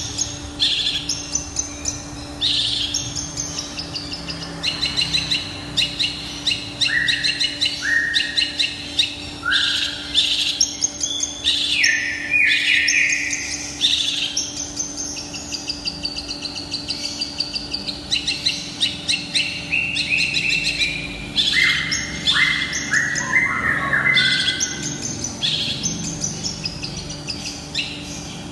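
Long-tailed shrike (cendet) singing a fast, varied song of chattering notes, rapid repeated trills and short downward-sliding calls, packed with the mimicked phrases of other birds (isian) that keepers prize. A faint steady low hum runs underneath.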